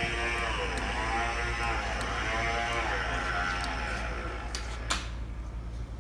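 Bridgeport mill's table power feed motor whining as it drives the table, its pitch rising and falling in waves over a steady low hum. A sharp click about five seconds in ends the whine, as the feed is switched off.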